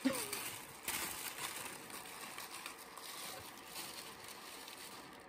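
Packaging being handled and opened: rustling and scraping of a cardboard box and stickers, with a few sharper clicks near the start and about a second in.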